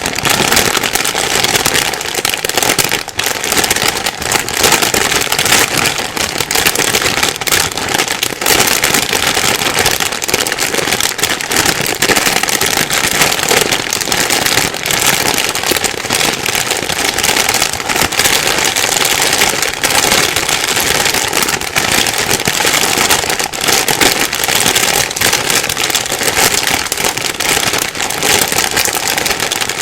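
Plastic bag being rustled and crumpled continuously, a dense loud crinkling with constant small crackles.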